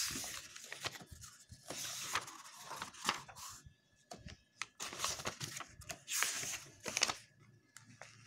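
Paper pages of a soft-cover book rustling as they are turned by hand, in several short bursts with small clicks between.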